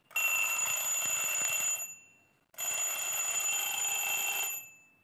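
Twin-bell quartz alarm clock ringing, its hammer rattling rapidly between the two metal bells. It rings in two bursts of about two seconds each, with a short silence between them.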